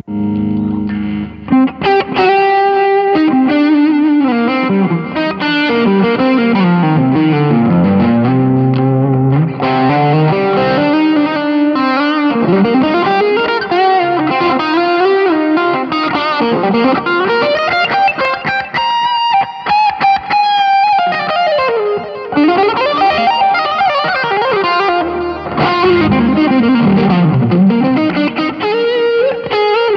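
Electric guitar played through an M-VAVE Tank-G multi-effects pedal: a continuous lead line of quick notes, with many slides and bends up and down.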